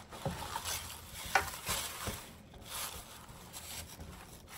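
Decorative greenery rustling and crackling as it is pushed and spread into a container by hand, with a few light clicks.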